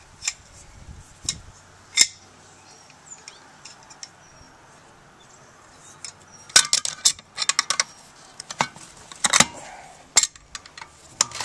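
Sharp metallic clinks and knocks of steel parts from a cut-open scroll compressor being handled as its shaft is worked out. A few single clinks come in the first two seconds, then a quick run of them a little past the middle and a few more near the end.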